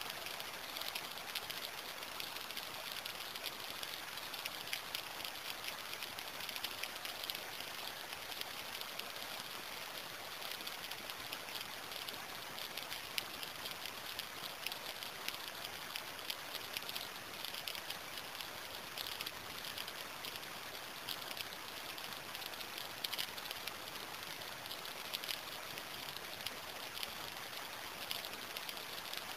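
Steady rain falling, a dense even hiss dotted with countless small drop ticks, with no thunder.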